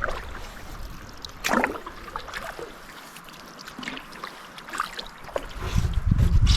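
Canoe being paddled on a creek: scattered paddle splashes, water trickling and dripping, and light knocks against the hull. A louder low rumble sets in near the end.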